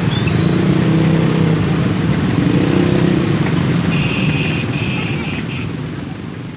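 Many motorcycle and scooter engines running and revving together as a crowd of riders moves off, with a brief high tone about four seconds in. The sound fades away near the end.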